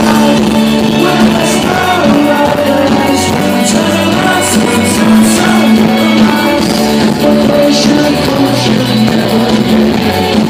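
Indie rock band playing live and loud, electric guitars and drums over a steady bass note, heard from among the crowd.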